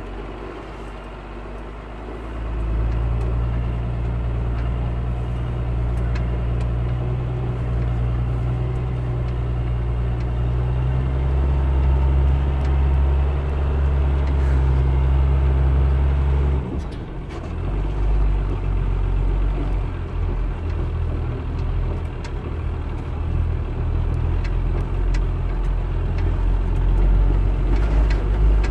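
Truck engine running inside the cab as it drives slowly over a rough track, a steady low drone with light knocks and rattles from the bumpy ride. About two seconds in the engine note rises and settles steady. A little past halfway it briefly dips, then comes back more uneven.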